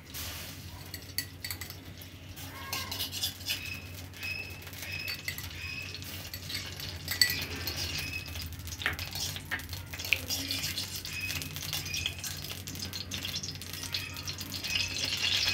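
Metal spoon stirring and scraping in a metal kadhai, with repeated short clinks against the pan as solid ghee is broken up and melted.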